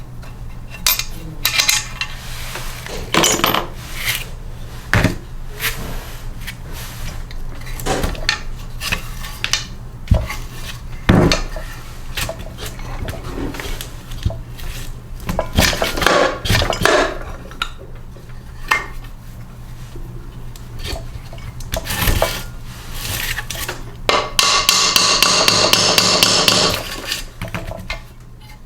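Metal engine parts and hand tools knocking and clinking on a workbench while a Briggs & Stratton small engine is taken apart, with a dense rapid rattling of metal for about two and a half seconds near the end. A steady low hum runs underneath.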